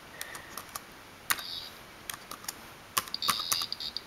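Typing on a Lenovo ThinkPad X60s laptop keyboard: irregular key clicks as a formula is keyed in, with a few short high-pitched beeps among them.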